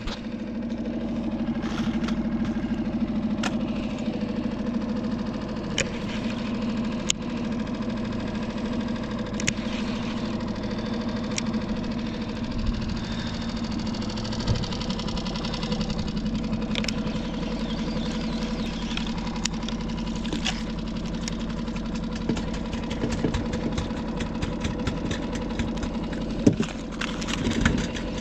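Skiff's outboard motor idling steadily, with scattered light clicks and knocks over it.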